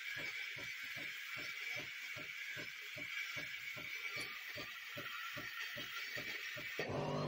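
Krups fully automatic coffee machine blowing steam from its milk spout: a steady hiss with a low pulsing about three times a second. No milk is drawn up, because the milk line is closed. Near the end a louder steady hum cuts in.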